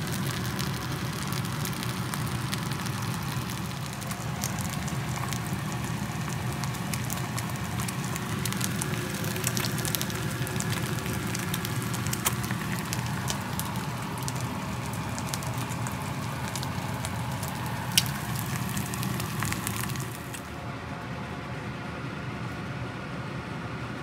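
Kimchi fried rice, then eggs, sizzling and crackling in a nonstick frying pan with frequent sharp pops, over a steady low hum. The sizzle stops about twenty seconds in, leaving only the hum.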